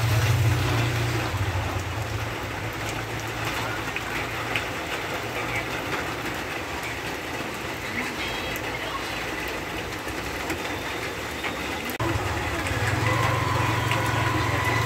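Heavy rain falling steadily on a wet road and puddled ground, an even hiss of drops and splashes. A low hum sits under the rain at the start and comes back, a little louder, from about twelve seconds in.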